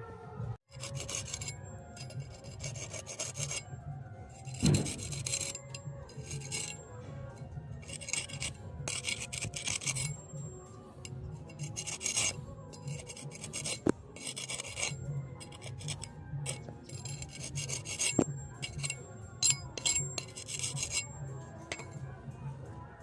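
Hand file rasping across the steel of a khurpi in repeated strokes, about one a second, with a few sharp clicks in between.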